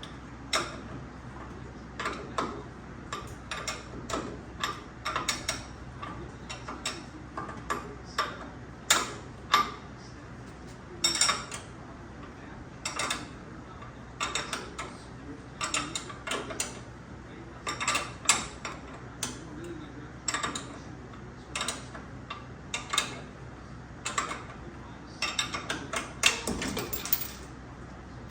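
Metal hand tools clicking and clanking against metal in short, irregular clusters about every second, ratchet-like in places.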